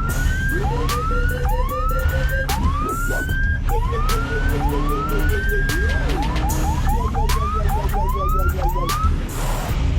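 A music track with a heavy bass line and a siren-like rising whoop repeated about once a second. The whoops come quicker about two-thirds of the way through and stop shortly before the end.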